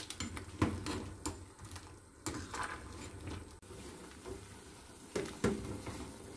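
A metal ladle stirring soup at a rolling boil in a stainless steel pot, knocking against the pot a few times over the bubbling. The loudest knocks come about half a second in and near the end.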